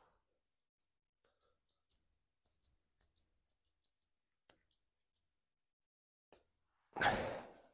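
Curved grooming scissors snipping the fur on a dog's face: a run of light, irregular clicks, several a second, then a short loud rush of noise near the end.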